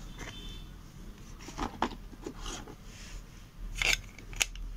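AA batteries being handled and pushed into a TV remote's plastic battery compartment: scattered rubbing and small plastic clicks, with a sharper click about four seconds in as a battery seats, and another shortly after.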